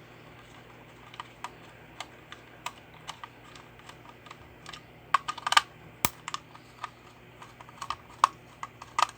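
Irregular small clicks and taps of hard plastic parts being handled while a toy remote-control car is taken apart, with a quick flurry about five seconds in and more near the end, over a faint steady low hum.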